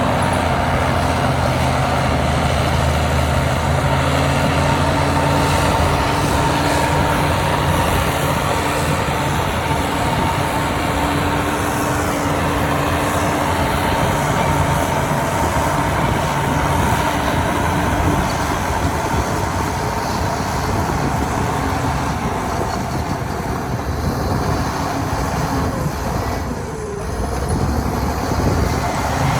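Heavy diesel earthmoving machinery running steadily, with a constant whine above the engine. The sound dips briefly near the end.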